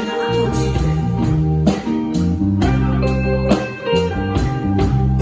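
Instrumental music with guitar over a steady beat and bass line, the instrumental lead-in to a song before the vocal enters.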